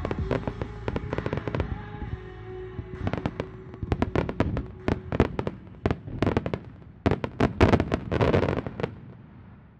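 Starmine fireworks display: a rapid barrage of aerial shell bursts, several bangs a second, building to the densest and loudest volley about seven to eight and a half seconds in, then dying away near the end.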